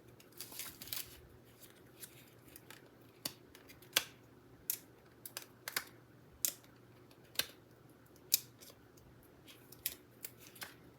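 Small sharp clicks and snips of paper-crafting work at a desk: die-cut paper pieces and tools being handled, at irregular intervals of about one a second.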